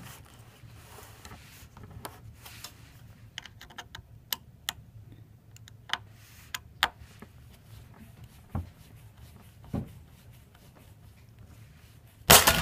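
Screwdriver working the bottom-case screws of a MacBook Pro bulged by a swollen battery: scattered small metallic clicks and taps, with two duller knocks a little after the middle. A loud, short rush of noise comes near the end.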